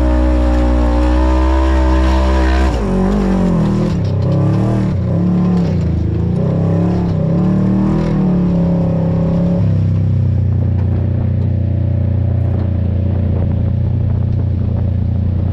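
Off-road vehicle's engine held at high revs, then revving up and down with the throttle, then settling to a steady lower running note about two-thirds of the way in.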